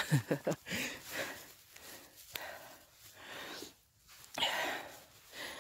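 A person breathing heavily close to the microphone: three long, noisy breaths, about a second and a half apart.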